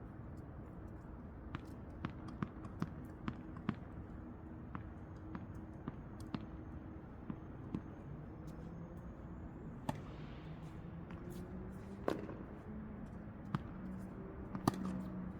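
Tennis balls popping off rackets and bouncing on the court: a dozen or so sharp pops at irregular intervals, some in quick succession, over a steady low hum.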